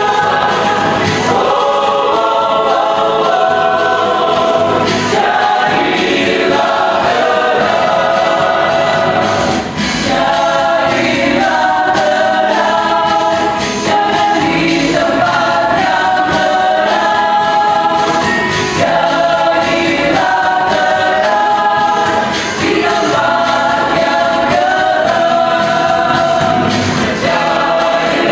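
Large combined church choir singing in several-part harmony, the voices moving together in held and changing chords.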